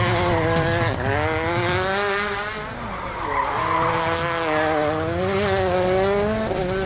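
Hyundai i20 WRC rally car's 1.6-litre turbocharged four-cylinder engine revving hard, its pitch climbing and dropping back several times as it shifts through the gears, with tyre noise as the car slides on the tarmac.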